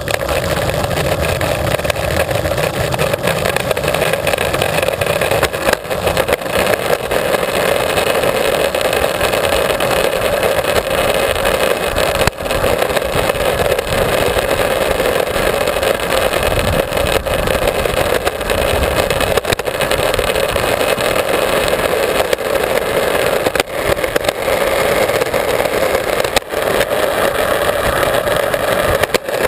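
Longboard wheels rolling fast down an asphalt street: a loud, steady rolling noise that holds unchanged throughout.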